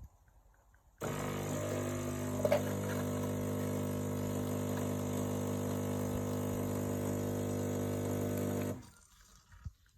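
Philips Incanto coffee machine running with a steady buzzing hum that starts abruptly about a second in and cuts off shortly before the end, with one brief click along the way.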